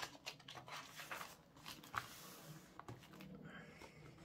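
Faint handling of paper: light rustles and taps as a notebook's pages and a printed card are moved about on a table, with a soft sliding rustle partway through.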